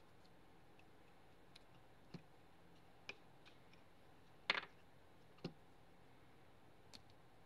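Small plastic bottles and caps clicking and tapping against each other and a cardboard box as they are handled; a handful of separate light clicks over a quiet background, the loudest a double click about four and a half seconds in.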